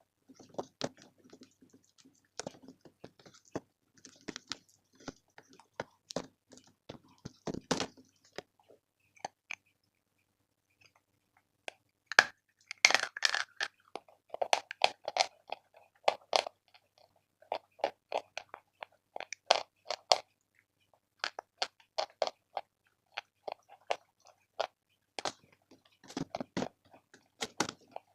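Chalk being bitten and chewed close to the microphone: a run of dry crunching and crackling chews. It pauses for a few seconds about a third of the way through, then returns with louder crunching bites.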